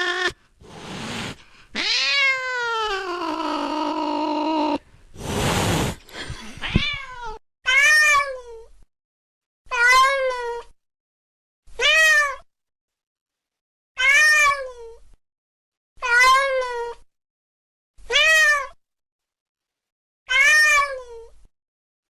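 Domestic cat meowing: a long drawn-out yowl that falls in pitch over the first few seconds, a short noisy burst, then the same short meow repeated about every two seconds, seven times.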